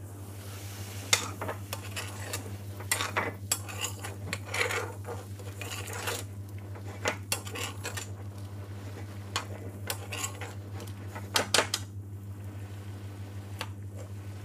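Long-handled metal spoon stirring and scraping a thick curry in a metal frying pan, with scattered clinks and knocks of metal on metal, over a steady low hum.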